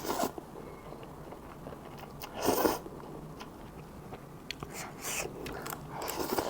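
Close-up eating of Korean cup ramen noodles: chewing mouth noises, with short louder bursts of eating noise, the loudest about two and a half seconds in and more near the end.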